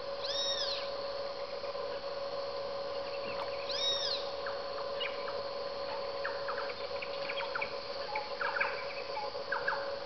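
Dawn wildlife chorus over a steady drone. A loud, arching call rises and falls twice, about three and a half seconds apart. From about halfway through, many short, quick chirps of birds join in.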